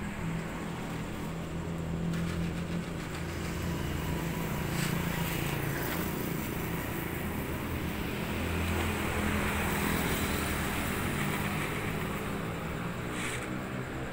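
Steady city road traffic: car engines running and vehicles passing, growing a little louder midway and easing off near the end.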